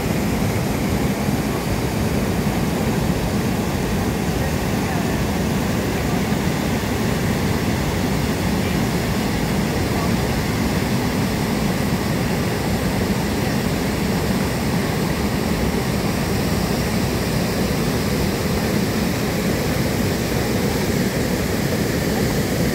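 Waterfall and the rapids below it: a steady, unbroken rush of water pouring over rock ledges and churning through the pool.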